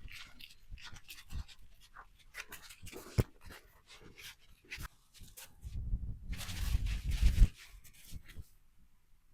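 A beagle panting and sniffing, among scratchy rustles and clicks. About six seconds in comes a louder stretch of rustling with a low rumble, then it goes quiet near the end.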